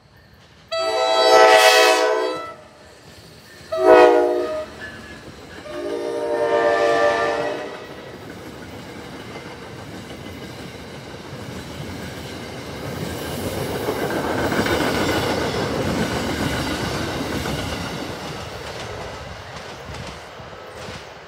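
NJ Transit ALP-46 electric locomotive's horn sounding the end of a grade-crossing signal: a long blast, a short blast and a long blast. After the horn, the train's passenger coaches pass with a rumble and clickety-clack of wheels on the rails that swells and then fades.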